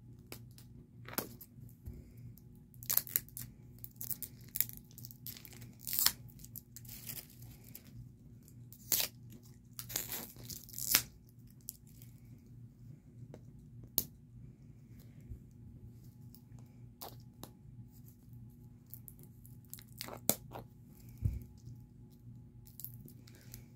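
Plastic packaging on a sealed toy capsule ball being picked at and torn by hand, in short scattered bursts of tearing and crinkling, over a faint low hum.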